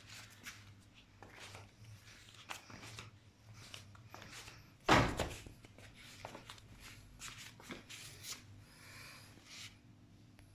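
A series of clicks and knocks from objects being handled, with one loud knock about five seconds in.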